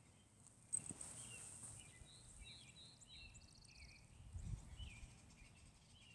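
Faint outdoor ambience with distant birds chirping, a scatter of short calls in the middle. A soft low rumble about four and a half seconds in.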